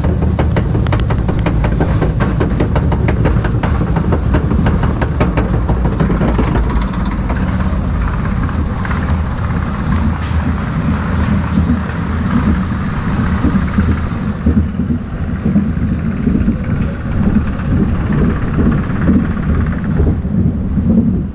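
Roller coaster train running along its steel track: a steady, loud rumble of the wheels on the rails, with a quick run of sharp clicks over the first several seconds and a rougher, uneven rumble later on.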